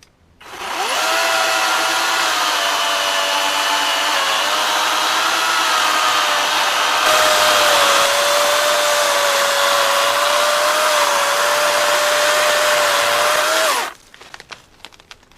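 Battery-powered electric chainsaw running steadily under load as it cuts through a tree trunk, a motor whine whose pitch sags a little mid-cut, then stops abruptly near the end. A few short sharp cracks follow.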